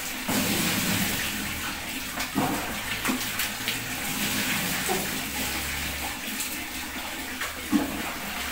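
Water splashing and pouring as a plastic dipper scoops from a bucket and tips water into a top-loading washing machine's tub to rinse it out, with a few short knocks of plastic.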